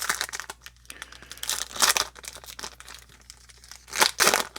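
Foil wrapper of a 2019 Topps Chrome baseball card pack being torn open and crinkled by hand, in irregular bursts that are loudest about two seconds in and again near the end.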